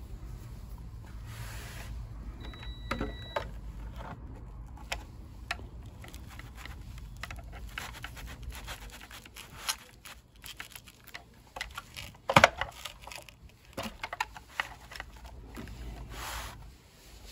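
Handling noise from a Pride Go Go Elite mobility scooter's plastic battery box as a sealed lead-acid battery is set into it: scattered clicks, scrapes and knocks, the loudest a sharp knock about twelve seconds in, over a low steady background rumble.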